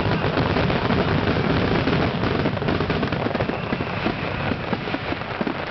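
Fireworks finale barrage: many shells bursting at once in a dense, unbroken run of overlapping reports and crackling, with no gaps between them.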